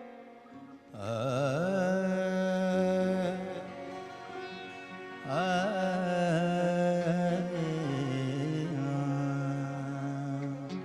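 Opening of a thumri performance: a melodic line with wavering, gliding notes over a steady held drone, in two phrases, the first starting about a second in and the second about five seconds in.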